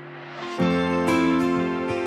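Background music: a held chord, then about half a second in a louder, fuller passage with plucked notes comes in.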